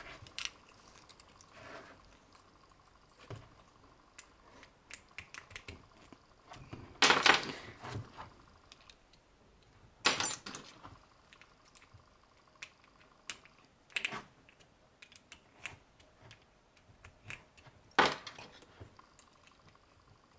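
Small metal parts and fittings clicking, tapping and knocking as an attachment is handled and fitted onto a desktop leather edge burnishing machine, with four louder knocks spread through it among many light ticks.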